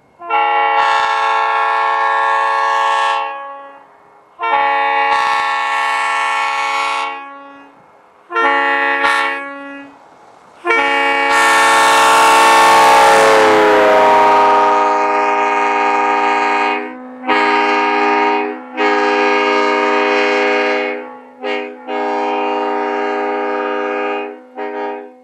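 Leslie S3J three-chime train air horn on a car, sounding a series of blasts during a run-by. It opens with two long blasts, a short one and a long one, the railroad grade-crossing pattern. During the long blast the chord drops in pitch as the car passes, with a rush of the moving car, and several more blasts of varying length follow.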